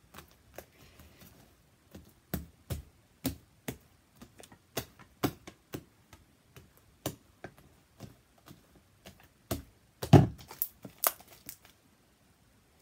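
Sticky slime, made stickier with Dial hand soap, being stretched, squeezed and slapped against a table by hand: an irregular string of sharp wet pops and clicks, loudest about ten seconds in, stopping shortly before the end.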